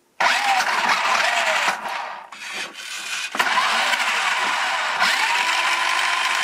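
Tonka XT Ricochet RC car's electric motors and gears running at full whine with the wheels off the ground, in two bursts with the pitch rising and falling. This is a function test after repair.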